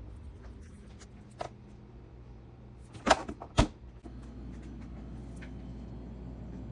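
Refrigerator freezer door being handled: a few light clicks, then two sharp knocks about half a second apart, over a steady low hum.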